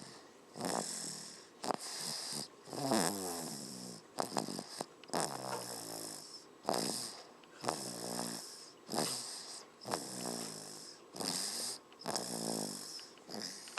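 A baby snoring in his sleep: a steady rhythm of breaths about every two seconds, each with a buzzing snore.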